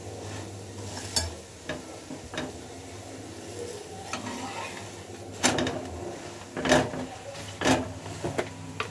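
Flat metal spatula scraping and clacking against an iron tawa as a besan chilla is flipped and pressed, with faint sizzling of the frying chilla. A few light scrapes in the first half, then three louder strokes near the end.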